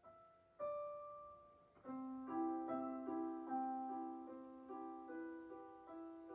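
Soft solo piano music: a few slow single notes, then from about two seconds in a low held note with a gently repeating figure above it.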